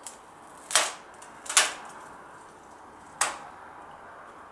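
Three sharp clicks, the first two under a second apart and the third about a second and a half later.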